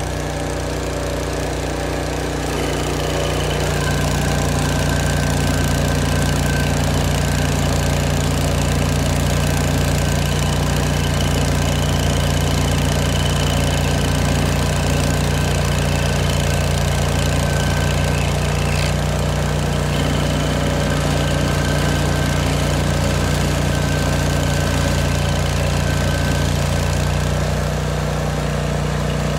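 Old Vermeer stump grinder's engine running steadily, getting a little louder about four seconds in and easing off slightly near the end.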